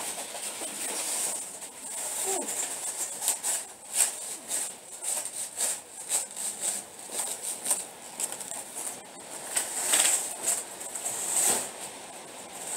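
Plastic shopping bags rustling and crackling, with light knocks as goods are handled and moved, in an irregular run of short noises. The loudest rustle comes near the end.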